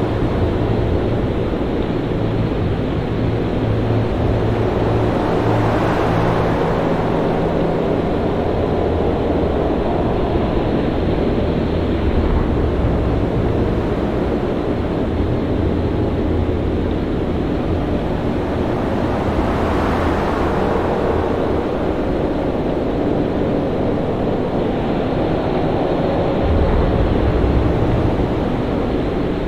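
Stormy sea ambience: a steady rush of wind and surf over a low rumble, with waves swelling up twice, about a fifth and two thirds of the way through.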